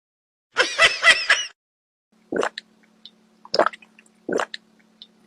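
A short high, wavering vocal-like sound, then three sharp drip-like plops and a few faint ticks over a low steady hum.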